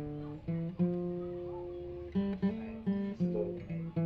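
Background music: a plucked guitar melody, single notes ringing out one after another.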